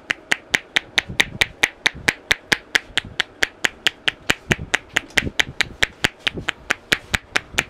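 Hands striking the head in a head massage: a fast, even run of sharp claps, about four or five a second.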